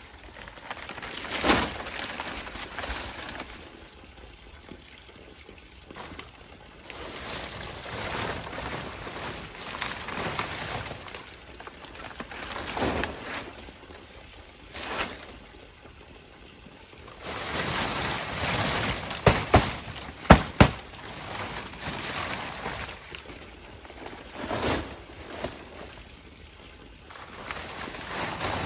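Water splashing and sloshing in repeated swells a few seconds long, with a few sharp knocks about two-thirds of the way through.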